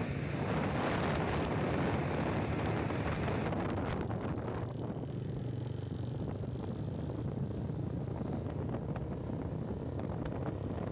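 Motorcycle engine running steadily on the move, with wind rushing over the microphone. The upper hiss of the wind eases about five seconds in.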